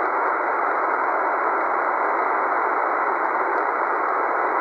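Eton Elite Executive shortwave receiver in lower-sideband mode on 40 meters, giving a steady hiss of band static with no station transmitting. The noise is held to a narrow voice-width band and sounds thin and muffled.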